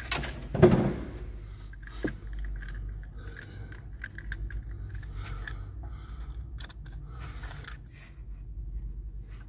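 Small metal clinks and light scrapes of a hand-turned socket tool and loose parts on a Mercedes Sprinter's diesel injector as a part is unscrewed from it, with a louder knock about half a second in and a sharp click about two seconds in.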